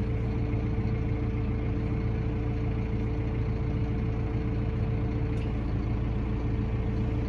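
Tractor engine running steadily, a constant drone heard inside the cab.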